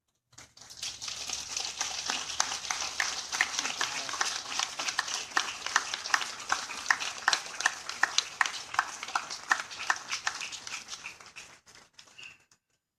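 Crowd applauding: many hands clapping at once, starting suddenly and dying away near the end.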